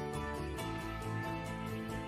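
Background music with no speech.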